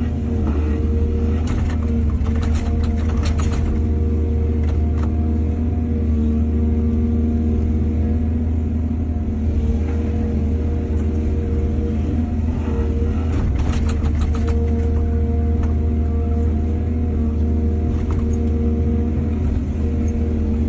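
Heavy diesel engine of an excavator running steadily under load, with short bursts of clattering and scraping at the start and again about two-thirds of the way through.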